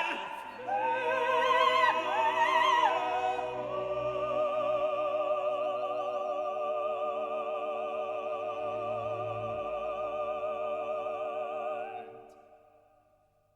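Operatic singing with strong vibrato over an orchestra. A few moving notes lead into a long held final note that fades out about twelve seconds in.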